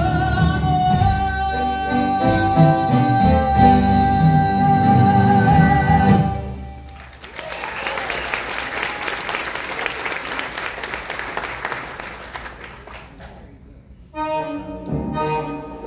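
A male singer holds the long final note of a ballad over a live band, ending about six seconds in. Audience applause follows and fades out, and a new band number starts near the end.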